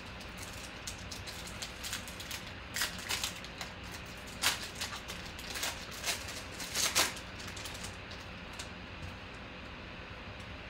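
Foil wrapper of a Panini Contenders football card pack crackling and tearing as it is ripped open by hand, a run of sharp crinkles with the loudest near the middle.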